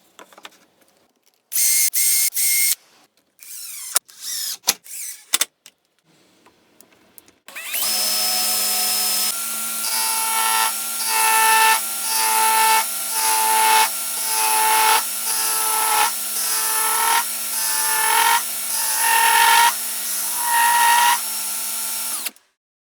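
Electric drill powering a homemade wood lathe: two short runs near the start, then a long steady run with a whine that swells and eases about once a second, stopping suddenly shortly before the end.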